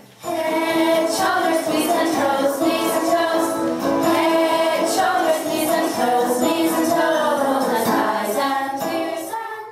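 A woman singing a children's song over backing music with a steady beat.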